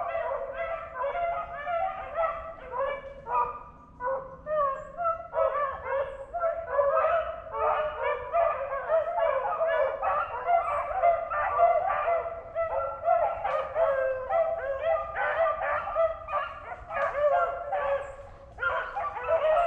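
A pack of beagles baying and yelping together almost without a break, hounds in full cry running a swamp rabbit's trail. There is a short lull about four seconds in.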